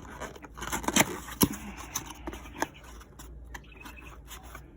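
Packaging being handled as a box is opened: scraping with a handful of sharp clicks and knocks, the loudest about one and one and a half seconds in.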